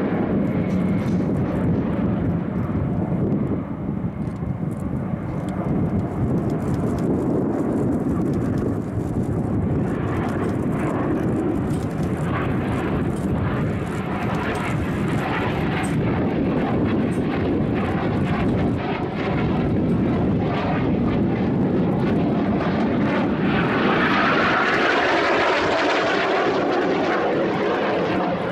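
Jet noise from Aermacchi MB-339 trainers' turbojet engines as the formation flies past, a steady roar throughout. In the last few seconds a higher-pitched whine swells and grows louder as the formation approaches.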